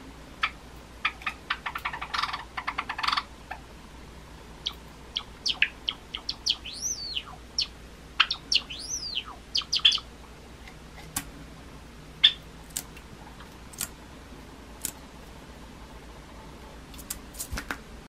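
Java sparrow singing. It starts with a fast run of clicking notes, then gives two arched whistled notes that rise and fall, about seven and nine seconds in. After that come scattered single clicks.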